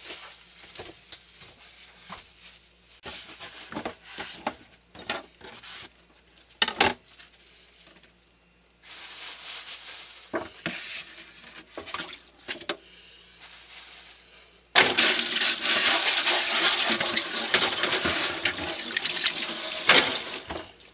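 Scattered knocks and clatter at a kitchen sink, then a kitchen tap running hard for about six seconds as hands are rinsed under it, stopping sharply near the end.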